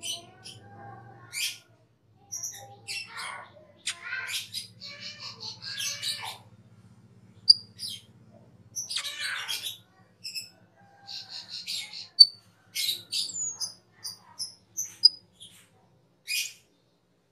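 Asian glossy starling (cucak keling) singing: a run of short squeaky chatters, sharp high whistles and harsher notes in bursts with brief gaps, stopping near the end. A low steady hum lies underneath for the first half.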